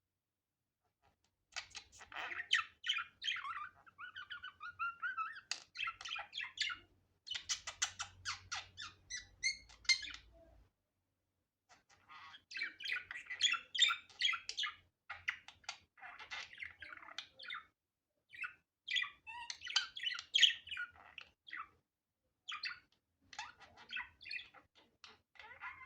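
Budgerigar chattering and warbling in runs of rapid chirps and squawks, broken by short pauses. It begins after about a second and a half of quiet.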